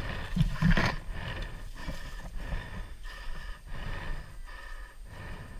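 A player breathing hard while running, with an even rhythm of steps and gear jostling about every two-thirds of a second. Wind rumbles on the microphone. A louder breath comes about half a second in.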